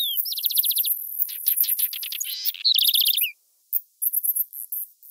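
Nature field recording of birds calling over high, rhythmic insect chirping: a downward-slurred whistle, then quick trills and a series of falling notes. About two-thirds of the way in the sound drops out briefly, and the insect chirping returns alone in short pulses.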